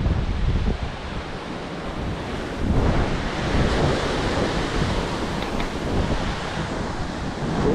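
Ocean waves surging and washing over rocks, with wind buffeting the microphone; a wave washes in about three seconds in.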